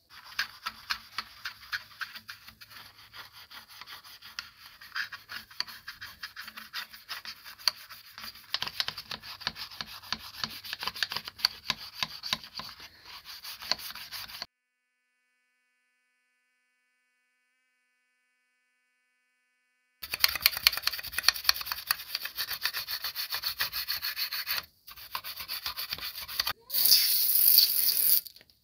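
A toothbrush scrubbing a foam-covered rusty metal mouse trap part in quick scraping strokes. It breaks off for a few seconds in the middle and resumes, with a louder, hissier stretch near the end.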